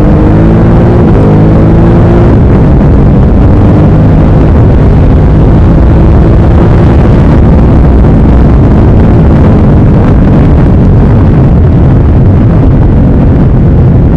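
2017 Ducati Supersport S's 937 cc Testastretta L-twin engine under way, rising in pitch as it pulls with a gear change about a second in, then running steadily and rising again near the end. Heavy wind noise on the microphone throughout.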